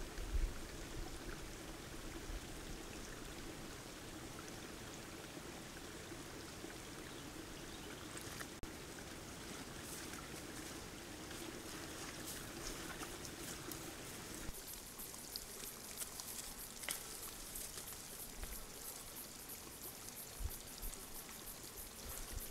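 Faint, steady hiss of outdoor ambience picked up by a trail camera's microphone at a mud wallow. There are a couple of low thumps at the very start. About two-thirds of the way in, the sound changes at a cut, with a faint, fast high crackle running through the last part.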